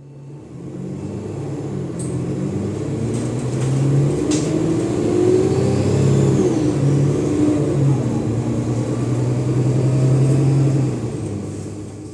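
Cummins ISLe diesel engine of an Alexander Dennis Enviro 500 double-decker bus pulling hard under kickdown, its pitch stepping as the ZF automatic gearbox changes gear. A faint turbo whistle rises and falls in the middle, and the sound fades near the end.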